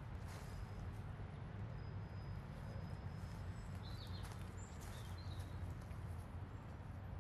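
Outdoor city-park ambience: a steady low rumble with a few short bird chirps about four to five seconds in.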